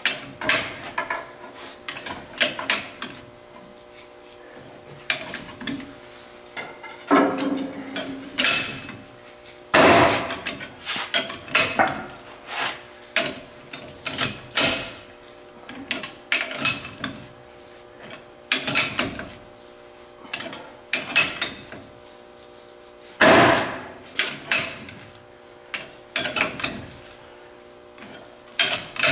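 Steel tools and parts clanking and knocking at irregular intervals, with some sharp metallic strikes, as a ball joint is worked into a truck's front axle knuckle. A faint steady hum runs underneath.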